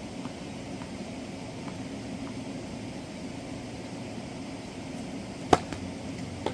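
Tennis ball struck by a racket: one sharp pop about five and a half seconds in and a lighter one near the end, with a few faint taps earlier. A steady background hum runs underneath.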